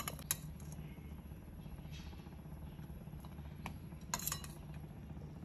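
Stainless steel tongs clicking and tapping against a ceramic bowl and plate while pieces of syrup-soaked fried bread are moved: a few light clinks, with a small cluster a little past four seconds, over a low steady hum.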